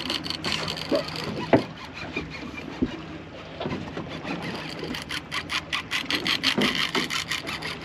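Big-game fishing reel on a hard-bent rod clicking rapidly in the second half, about six clicks a second, as line is worked under heavy load from a hooked tuna. A few sharp knocks come earlier, and a low steady hum runs underneath.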